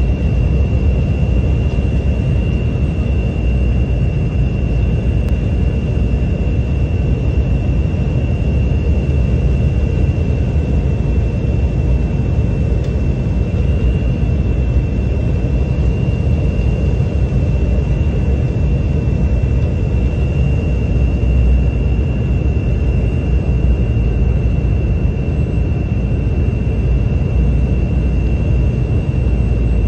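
Steady jet cabin noise inside an Embraer 175 regional jet on final approach to landing. A deep rumble of its twin turbofan engines and the airflow carries a thin steady whine high above it.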